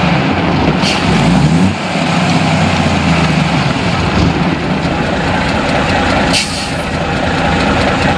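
A truck engine running steadily, with two short hisses, one about a second in and one near the end. It starts and cuts off abruptly.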